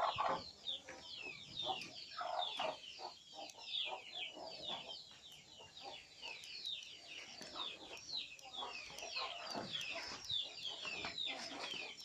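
Free-range village chickens (ayam kampung) calling in a coop: a dense, continuous run of short, high peeps that each fall in pitch, with lower clucks now and then.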